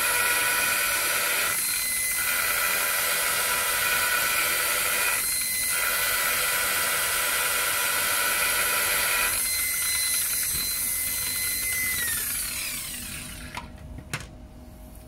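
Makita 9237C rotary polisher running with a foam buffing pad and cutting compound on plastic, with a steady motor whine that dips briefly twice. About twelve seconds in it is switched off and the motor winds down, falling in pitch.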